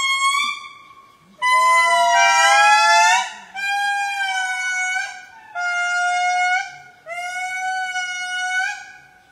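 A lemur giving a series of long, steady, trumpet-like calls of one to two seconds each, with short pauses between them and a second voice overlapping the first call.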